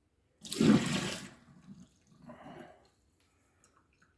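Hot water, used to warm a coffee mug, being poured out of it: a splash lasting about a second, then a shorter, weaker splash of the last of the water.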